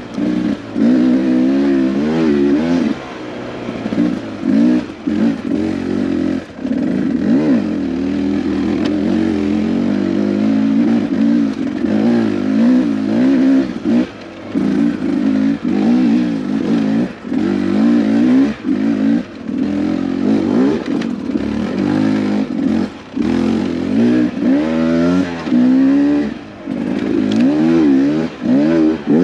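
Beta 250RR two-stroke dirt bike engine under constant throttle changes while riding a trail, its pitch rising and falling again and again, with short drops in loudness as the throttle is rolled off.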